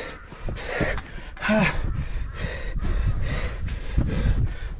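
A person breathing hard, quick loud breaths about twice a second from heavy exertion, with a short voiced grunt about a second and a half in and a low rumble underneath.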